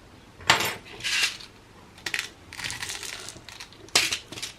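Small steel bearing balls clinking and rattling as they are dropped into the ball tracks of an HGR20 linear rail carriage. They come in several separate bursts, the loudest about half a second in and near the end.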